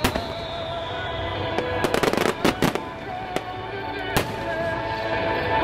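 Aerial firework shells bursting in a string of sharp bangs, the heaviest cluster about two seconds in and another bang about four seconds in, with music playing underneath.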